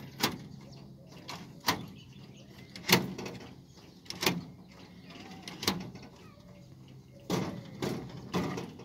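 Sharp plastic-and-metal clacks from the fuse-switch units of a low-voltage distribution feeder pillar being handled, about one every second and a half, with louder knocks near the end, over a faint low hum.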